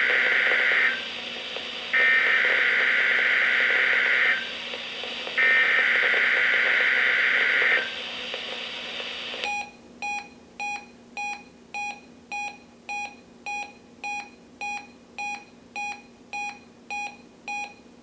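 NOAA Weather Radio SAME header: buzzy two-tone digital data bursts, the tail of the first and then two more, the encoded alert that the receivers decode. About two seconds after the third burst, a weather radio's electronic alert starts beeping steadily, about one and a half to two beeps a second.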